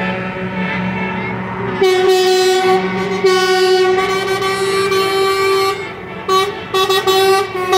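Lorry air horns blowing as decorated trucks drive past: long held blasts, then a run of short toots near the end, over the rumble of the passing lorries.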